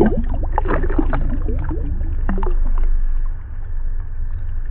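Water splashing and gurgling as a hand releases a smallmouth bass into the river, with bubbling sounds as the fish kicks away. The splashing eases after about three seconds. A steady low rumble runs underneath.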